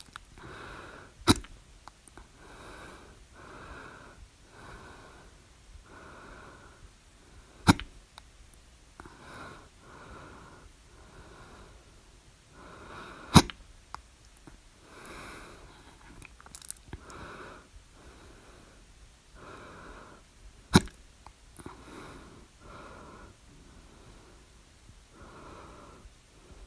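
A person's loud hiccups, four sharp ones about six to seven seconds apart, each with the mouth open. Softer, regular breath sounds come between them.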